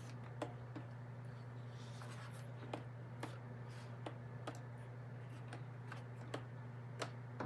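A series of irregular light clicks and handling noise as the button ring on the front of an Etenwolf Vortex S6 cordless tire inflator is pressed, over a steady low background hum.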